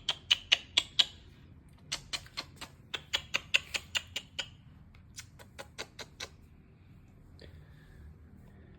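Cat chewing chicken: quick sharp clicks of its teeth in irregular bursts, stopping about six seconds in.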